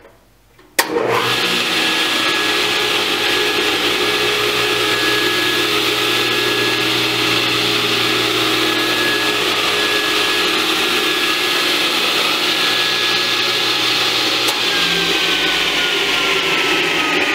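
A 1968 Powermatic 72 table saw with a 3 hp Baldor single-phase motor switched on with a click of its manual starter, coming up to speed almost at once and then running steadily, a high whine over a low hum. Near the end the whine slowly drops in pitch.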